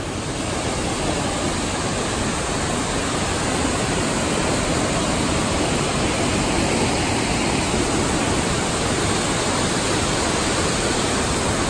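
Waterfall: white water cascading over rock ledges, a steady even rush.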